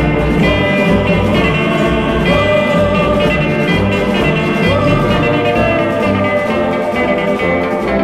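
Instrumental background music, steady and loud, with held notes changing in steps.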